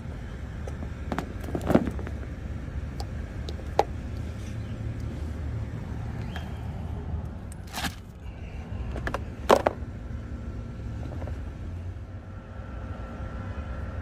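Handling noises at a car's open door while a coiled power cord is pulled out of its plastic bag: a few sharp knocks and clicks, two of them louder, over a steady low rumble.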